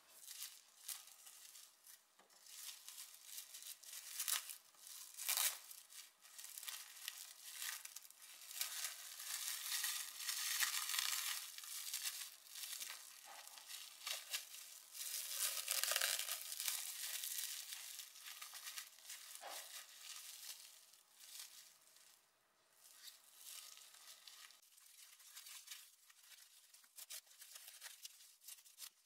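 Clear plastic film crinkling and rustling as a sandwich is handled in cling film and slid into a thin plastic bag. The crackling comes in uneven spells, loudest in the middle and quieter near the end.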